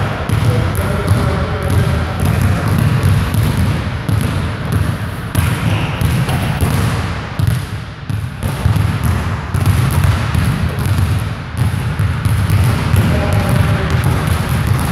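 Basketballs bouncing on a hardwood gym floor: several players' dribbles and rebounds overlapping as a steady run of low thuds, echoing around a large gymnasium.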